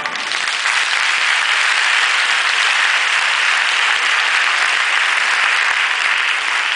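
Audience applauding steadily, with the clapping filling the whole pause between pieces of orchestral music.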